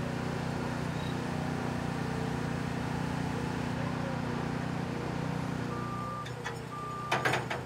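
Forklift engine running steadily, easing off after about five seconds. Near the end a reversing alarm beeps about once a second, with a couple of metal clanks.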